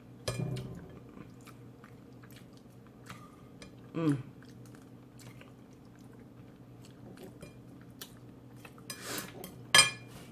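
Close-miked chewing of food, with soft crunches and small wet mouth clicks, broken by two brief hummed voice sounds and a sharp knock near the end.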